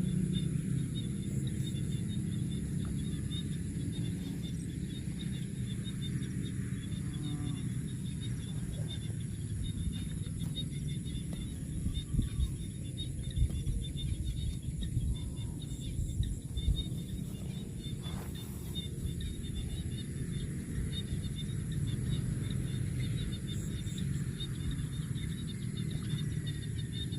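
Outdoor rural ambience: insects chirring steadily in a high, even band over a low rumble, with a few brief soft bumps in the middle.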